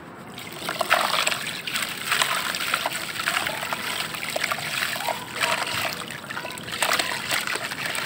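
Cup-shaped blocks of dry sandy red dirt crumbled and rubbed apart by hand in a plastic basin of water: splashing and sloshing in uneven surges as the soil breaks up and falls in, starting about half a second in.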